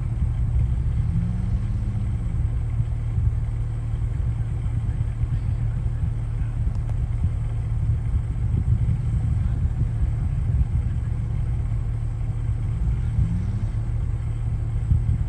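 Jeep engine running with a steady low rumble, its pitch rising and falling briefly about a second in and again near the end.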